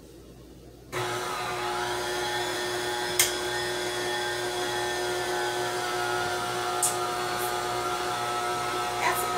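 KitchenAid stand mixer switched on about a second in, its motor then running steadily as it creams butter, sugar and shortening, with a few short sharp ticks along the way.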